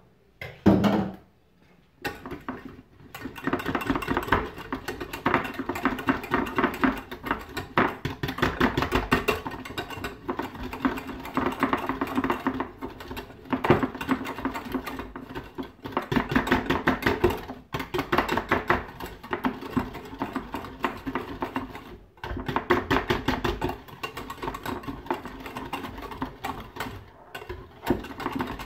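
Wire hand whisk beating a cream in a small stainless steel saucepan: a fast, steady rattle of the wires against the pan, broken by a few short pauses. A brief clatter comes just before the whisking starts.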